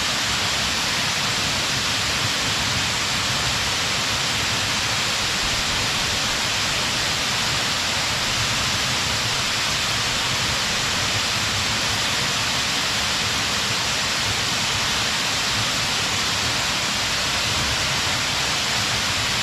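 Waterfall crashing into its pool: a steady, even rush of falling water that does not change.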